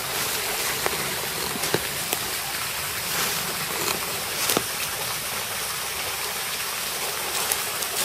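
Steady hiss of running water, with a few faint, sharp clicks over it.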